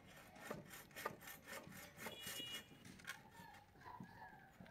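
Machete blade scraping along a wooden fence pole in quick, rhythmic strokes, about five a second, easing off after about two and a half seconds into a few scattered scrapes.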